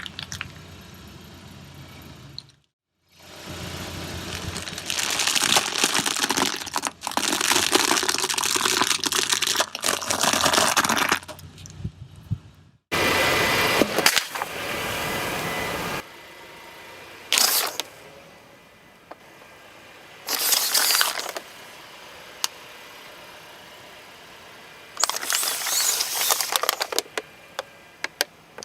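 Things being crushed: a run of separately cut bursts of crackling and crunching, several seconds long at first, then shorter bursts in the second half, with a low engine hum under the first half.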